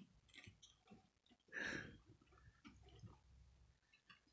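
Near silence: room tone with a few faint clicks and one short breathy sound about a second and a half in.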